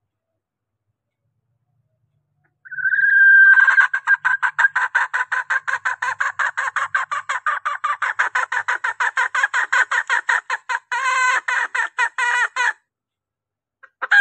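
Female green junglefowl call: a short held note, then rapid clucking at about five notes a second for several seconds, crowding closer together near the end. One more short call follows about a second later.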